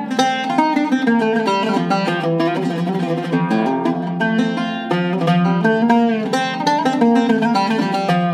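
Zaryab seven-course Iraqi-style oud, with a cedar top and a mahogany back, played with a plectrum in a fast melodic passage. Many quickly picked notes ring over low sustained notes.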